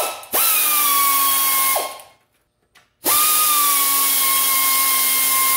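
Handheld air ratchet spinning out half-inch nuts and bolts: a quick blip, a run of about a second and a half, a pause, then a longer steady run. The tool gives an even whine over a high hiss.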